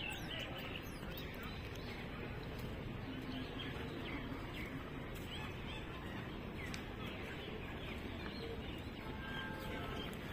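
Birds chirping and calling, many short chirps scattered over a steady open-air background hum.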